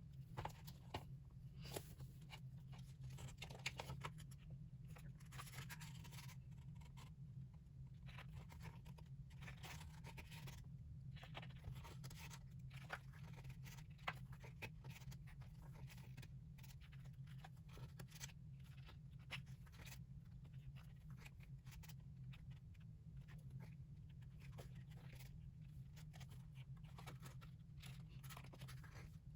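Hands unwrapping and handling K-pop albums and their contents: plastic and paper rustling and tearing, with scattered small clicks and taps over a steady low hum.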